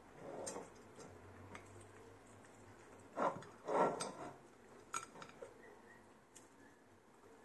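Hands folding and rolling a pickled cabbage leaf around its filling on a ceramic plate: soft handling and rustling noise, with two louder scuffs about three seconds in and light clicks against the plate.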